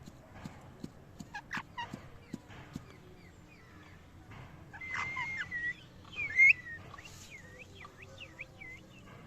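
Parrot calling: a few faint clicks at first, then chirps and whistles from about five seconds in. The loudest is a sharp squawk a little after six seconds, followed by several short up-and-down whistles.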